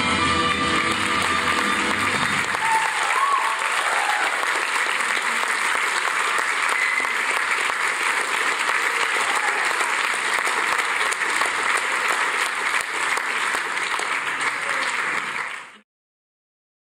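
Theatre audience applauding. The closing music ends about two seconds in, and the applause cuts off abruptly near the end.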